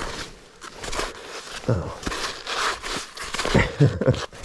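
Irregular crunching and scraping of packed snow being worked loose by hand and boot, with short grunted exclamations.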